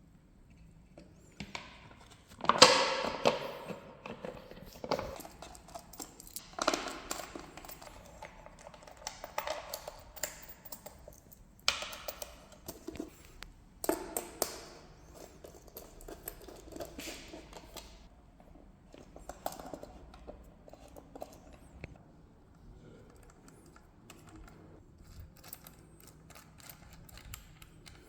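Irregular clicks, taps and knocks of chair parts being handled and worked on during disassembly of a Sidiz office chair, a few louder clunks among them, growing sparser toward the end.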